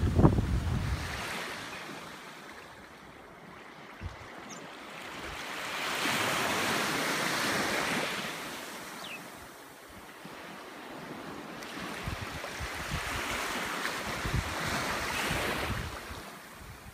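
Small waves washing up on a sandy, rocky shore. The hiss of the wash swells and fades over a few seconds at a time, with wind buffeting the microphone in the first second or so.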